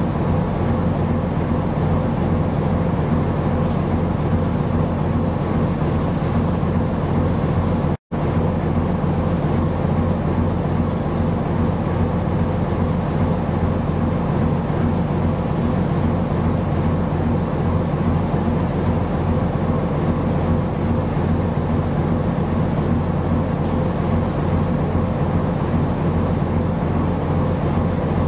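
Steady low drone of a ship's engine, several level tones over a wash of noise. The sound drops out for an instant about eight seconds in.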